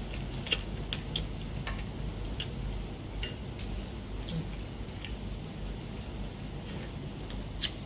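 Eating a boiled prawn by hand: irregular small wet clicks and smacks of lips and teeth as the head is sucked and the shell bitten, over a steady low hum.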